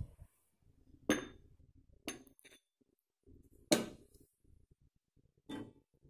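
A metal ladle knocking and clinking against a cooking pot and a glass serving bowl while hot lentil curry is ladled out: about six sharp knocks, the loudest a little past the middle.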